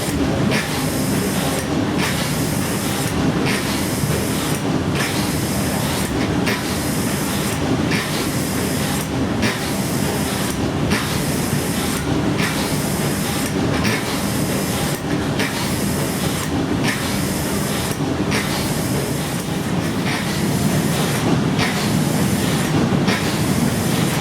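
Escher Wyss steam engine of the paddle steamer Blümlisalp running steadily, a continuous mechanical clatter and hiss that pulses in a regular rhythm about once every one and a half seconds.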